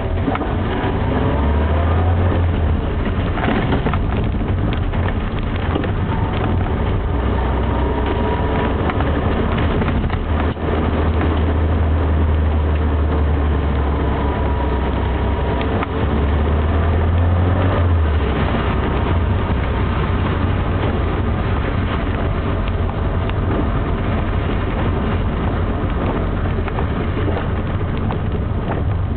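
Classic Mini engine heard from inside the cabin, running steadily under way on a wet mountain road, with tyre and road noise. The low engine drone eases off twice, briefly, about a third of the way and about halfway through.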